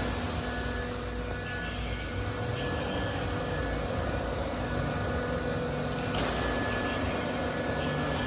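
CIMC1370 CNC router with automatic tool changer running: a steady machine hiss with several faint, steady whining tones from the spindle and drives.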